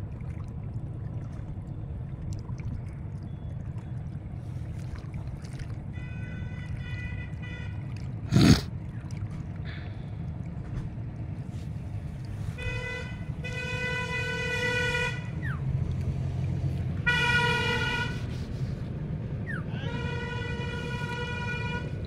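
A horn sounding several long toots of a second or two each over a steady low rumble. A single sharp knock about eight seconds in is the loudest sound.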